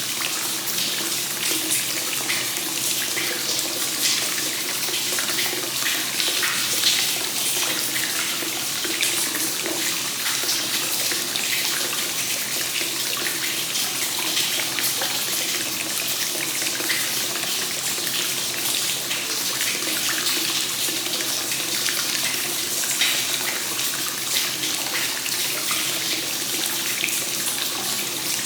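Hot spring water flowing continuously into a bath, a steady splashing pour of free-flowing source water.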